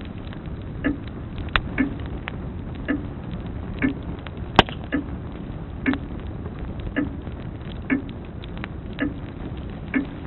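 Grandfather clock ticking about once a second over a crackling wood fire, with scattered sharp pops from the fire, the loudest about halfway through.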